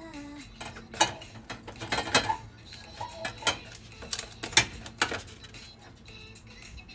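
Kitchen utensils and dishes clinking and knocking together in irregular clusters of sharp clatters; the loudest come about a second in and just past the middle.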